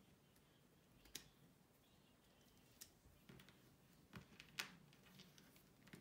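Faint, scattered clicks and light knocks of plastic LEGO SPIKE Prime parts being handled and pressed together, about half a dozen, the loudest about four and a half seconds in.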